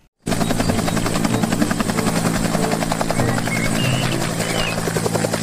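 Bell UH-1 'Huey' helicopter lifting off and climbing, its two-blade main rotor beating fast and evenly over the steady turbine. The sound starts suddenly about a quarter second in.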